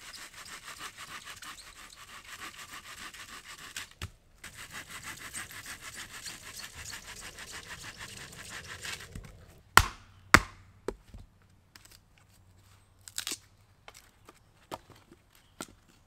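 Hand saw cutting through a wooden log in quick, even back-and-forth strokes, with a short pause about four seconds in; the sawing stops around nine seconds. Then two loud sharp knocks and a few lighter ones as a wooden baton strikes the spine of a knife to split wood.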